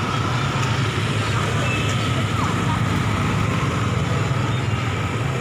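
Steady street din of motorbike traffic with a constant low rumble underneath.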